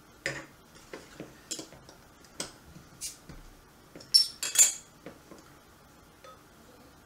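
Glass beer bottles and a drinking glass clinking and knocking as they are handled on a tabletop. The loudest is a pair of sharp metallic clinks about four seconds in, as the cap is levered off a bottle of home-brewed beer.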